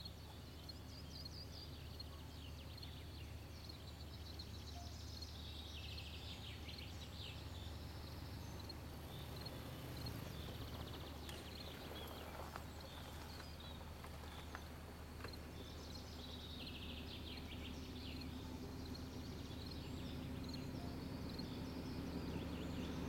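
Songbirds singing repeated trills over a low, distant diesel drone that grows steadily louder toward the end: the 2TE10M locomotive approaching, heard before it comes into view.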